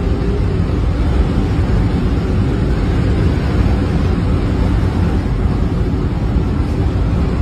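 Steady, loud low rumble of a storm at sea: wind buffeting the microphone together with ship and sea noise, without breaks.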